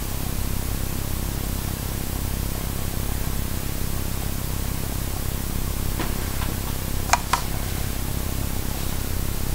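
Steady hiss and low hum of a webcam microphone's noise floor, with a few short clicks about six and seven seconds in.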